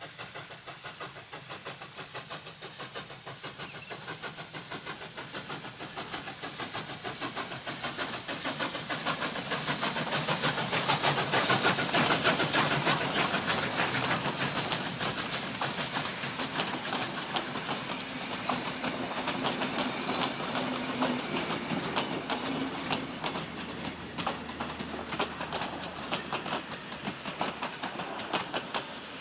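Victorian Railways K-class 2-8-0 steam locomotive passing under steam. Its exhaust beats grow louder as it approaches, with a hiss of steam as it goes by about twelve seconds in. Then the carriages' wheels click over the rail joints as the train rolls past and fades.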